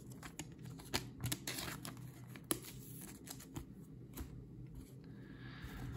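Panini Illusions trading cards being handled and flipped through by hand: soft, irregular clicks and rustles of card stock sliding against card stock.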